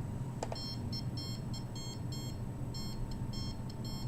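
A handheld microwave (RF) meter's electronic beeping: short high beeps in irregular clusters, several a second, over a steady low hum. The beeping is the meter's audio signal of the radiation it is picking up.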